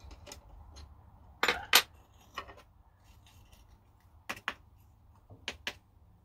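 Light metal clinks and taps as a machined metal plate and its offcut pieces are lifted out of the clamps on a milling machine's rotary table. They come in several quick pairs, the loudest about a second and a half in.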